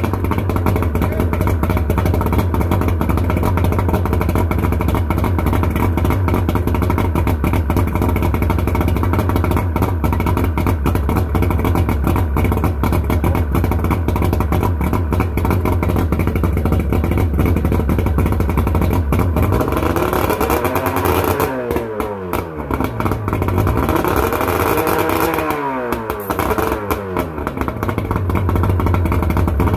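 1996 Mercury two-stroke outboard engine running on flush muffs out of the water, held at high revs, then throttled down and brought back up twice near the end. No solid miss is heard; the engine is not under load.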